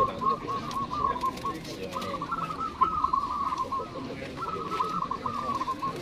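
Zebra doves (perkutut) cooing in quick runs of trilled notes, in three bouts with short breaks about one and a half and four seconds in.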